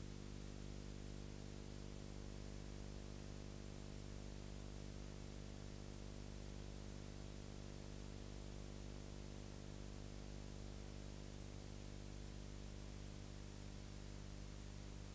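Faint steady electrical hum with its overtones under a soft even hiss: the noise floor of a silent recording.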